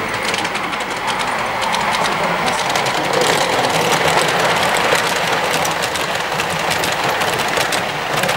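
Model electric train running past on the layout: a steady whirring rumble of its motor and wheels on the track, swelling a little as the locomotive and coaches pass close by, about halfway through.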